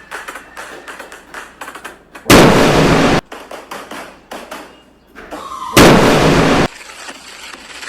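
Fireworks: scattered crackling pops, then two loud explosion bangs about three and a half seconds apart, each cut off abruptly, with a brief falling whistle just before the second.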